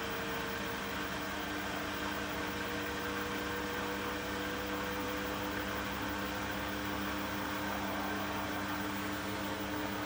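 Beko WTK104121W washing machine spinning its drum in the final spin: a steady motor hum with a few held tones over a rush of air and tumbling laundry, one tone creeping slightly higher in pitch.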